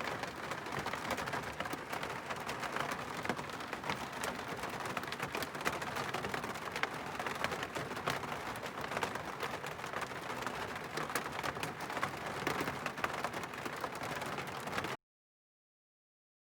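Campfire burning with dense, irregular crackling and popping over a steady hiss; it cuts off suddenly near the end.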